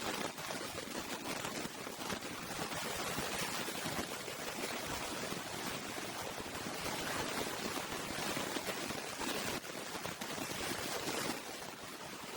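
Close-up eating sounds of seblak: soft, wet chewing and slurping at an even level, full of small crackly ticks.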